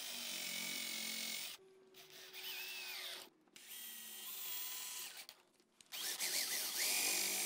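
Electric drill with a countersink bit drilling pilot holes into pine, running in four short bursts with brief pauses between them; the whine rises in pitch as the drill spins up.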